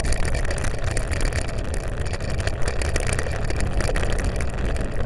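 Steady low rumble of wind buffeting the microphone of a camera mounted on a bicycle climbing a road, with rapid irregular knocks of the mount rattling over the road surface.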